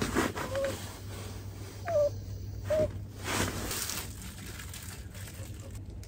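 Small dog whimpering in three short, high whines, begging to be fed sweet potato, with light rustling of a plastic glove and food tray.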